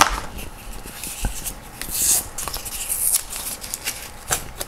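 Rustling and scraping of a small cardboard parcel being handled and unwrapped by hand, with scattered light clicks and taps and two louder bursts of rustling a couple of seconds in.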